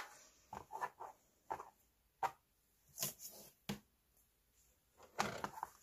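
Scattered light taps and soft rustles as hands handle cotton fabric squares and set a clear acrylic quilting ruler down on a rotary cutting mat, with one sharper tap a little after two seconds.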